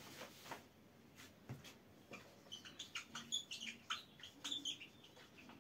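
Dry-erase marker squeaking and tapping on a whiteboard as a word is written: a string of short, high-pitched squeaks from about halfway through, after a few faint taps and wipes of a board duster.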